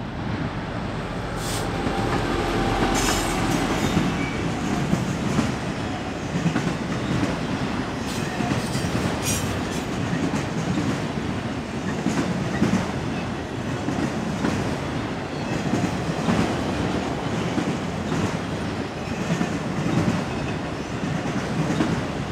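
A diesel-hauled freight train passing close by. The locomotive goes past about a second in, then a long line of autorack cars keeps rolling past with a steady wheel rumble and clickety-clack over the rail joints. A few brief high screeches come from the wheels in the first ten seconds.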